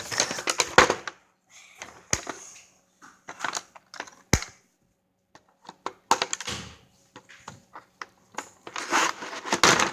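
Toy packaging being handled and opened by hand: scattered sharp clicks, cracks and crinkling with short pauses, as a part that was stuck is worked free.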